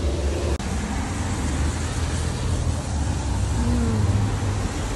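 Steady street traffic noise: a constant low rumble of cars passing on a city road.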